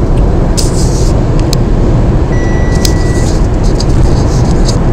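Steady road and engine rumble of a car cruising at motorway speed, heard from inside the cabin, with a few faint light clicks and one short high tone a little past halfway.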